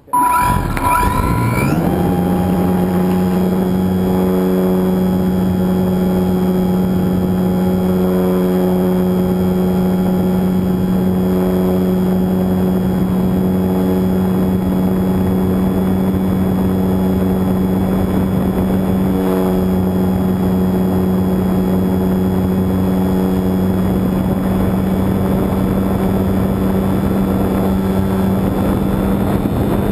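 RC Super Cub model plane's motor and propeller, heard from on board, throttling up suddenly from silence and rising in pitch over about two seconds for takeoff, then running at a steady high-power drone through the climb.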